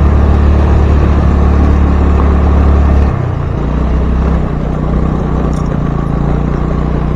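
A road vehicle's engine running steadily on the move, with road noise. About three seconds in, the engine note drops to a lower, slightly quieter steady drone.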